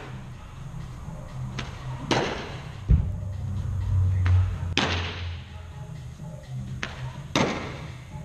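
Softball smacking into leather fielding gloves: three loud pops about two and a half seconds apart, each echoing in a large indoor hall. There is a dull thud about three seconds in.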